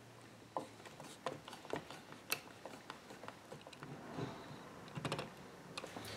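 Faint, irregular clicks and light knocks of hand tools and a spring clamp being handled against the wooden chair frame on a workbench.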